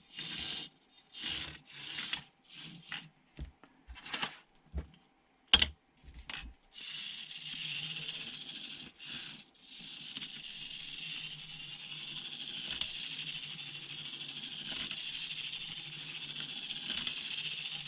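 Tiny 1/76 scale RC car's electric motor and geartrain whirring, with a light rattle. It comes in short throttle bursts at first, then runs steadily from about seven seconds in.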